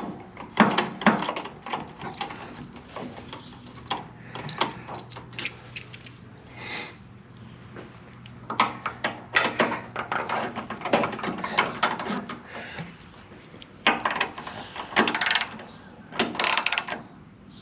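Ratchet wrench clicking in several runs of rapid clicks, with scattered metal clinks, as a crash-bar mounting bolt is worked that is hard to get threaded in.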